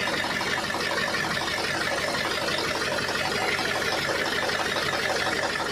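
Isuzu 8PE V8 diesel engine turning over on the starter in a hard-start attempt, a steady rhythmic churn that cuts off abruptly near the end without the engine catching.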